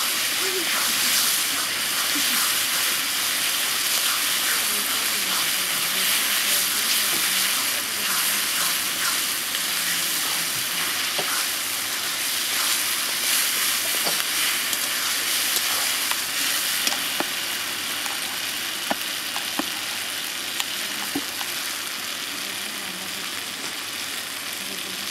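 Food sizzling steadily in hot oil in a cooking pan, with stirring and a scattering of sharp taps, more of them in the second half.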